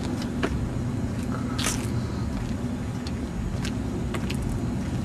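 Steady low rumble of outdoor background noise, with scattered light clicks and scuffs from a handheld phone being carried while walking.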